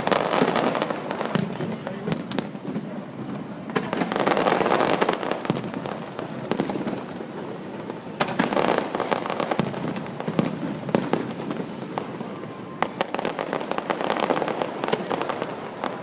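Fireworks display: a rapid series of bangs and crackles that comes in dense clusters every four seconds or so.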